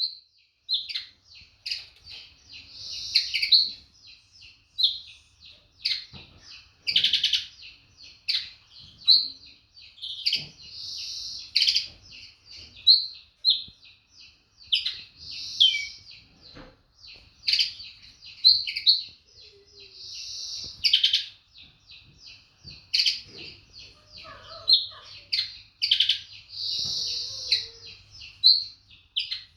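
Common linnet singing a fast, continuous twittering song of short repeated notes, with a louder, rougher note every four or five seconds.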